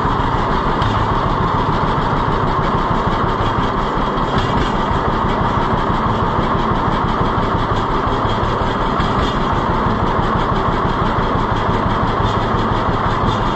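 John Deere B's two-cylinder engine running steadily on its freshly rebuilt carburetor.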